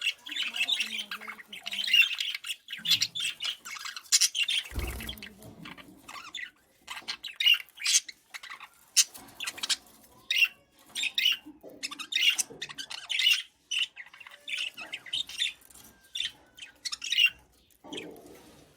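Bird calls: short, sharp squawks and chirps repeated irregularly, with one low thump about five seconds in.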